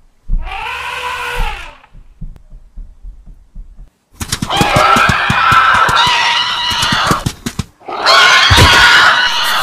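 An elephant trumpet sound effect, one call that rises and then falls in pitch, comes about half a second in, among faint low thumps. From about four seconds in come two long, rough, shrill screeching roars of a raptor-type dinosaur sound effect, split by a brief break near the end.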